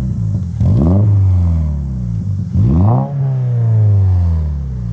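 A 2022 Subaru BRZ's 2.4-litre flat-four revved through an Invidia N2 cat-back exhaust, heard at the tailpipes. Two quick throttle blips about two seconds apart, each climbing fast and falling back slowly toward idle, in a deep, bassy exhaust note.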